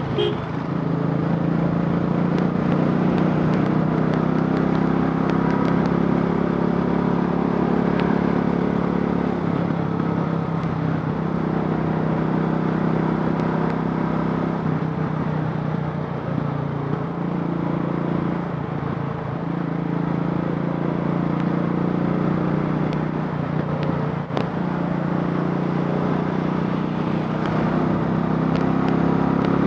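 Royal Enfield Classic 500's single-cylinder four-stroke engine, converted from fuel injection to a carburettor, running steadily, its pitch dipping and rising a few times.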